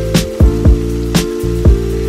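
Background music with a steady electronic beat: a kick drum about twice a second under sustained synth chords.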